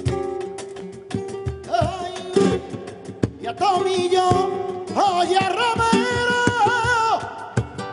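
Live flamenco: a flamenco guitar playing, then a male cantaor singing long, wavering notes from about two seconds in, with handclaps (palmas) keeping time.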